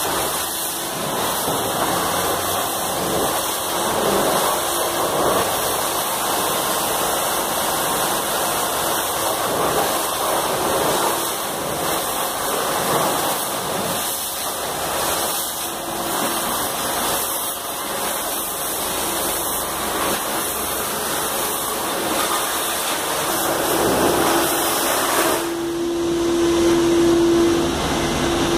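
Robotic underbody car wash's high-pressure water jets spraying up at a car's underside: a steady rushing hiss, with a steady machine hum joining in near the end.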